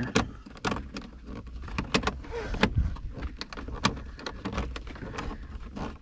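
Hand screwdriver driving a coarse-thread, self-tapper-like screw into the plastic dash bezel, giving a string of sharp, irregular clicks and creaks as the screw turns and the tool shifts in the hand.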